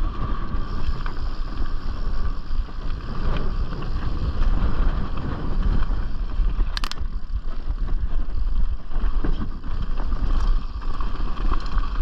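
Wind rushing over a chest-mounted action camera's microphone and the steady rumble of a Canyon Strive mountain bike rolling down a dirt trail, with one sharp click about seven seconds in.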